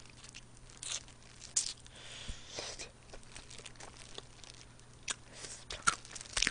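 Close-miked eating of fried chicken wings: crisp skin crunching and meat tearing off the bone, with chewing, in short scattered crackles and a longer crackly stretch about two seconds in.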